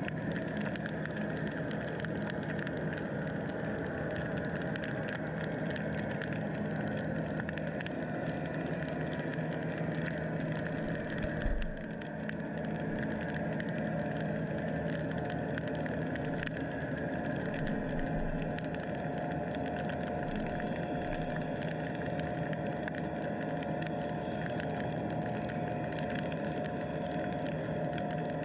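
Underwater ambience heard through a camera's waterproof housing: a steady hum of distant boat engines carried through the water, with a fine crackle over it. A single dull knock about eleven seconds in, and a higher steady tone joins the hum in the second half.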